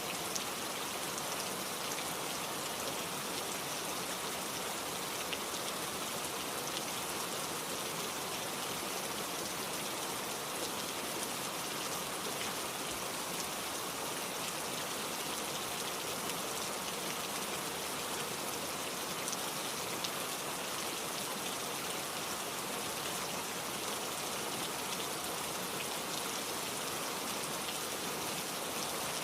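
Steady rainfall: an even hiss of rain with scattered drops pattering on a surface.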